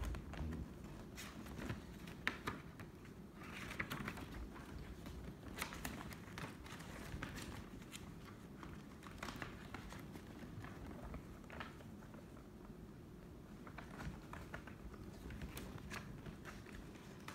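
Faint room noise: scattered light clicks and rustles over a low rumble, with a thump at the very start.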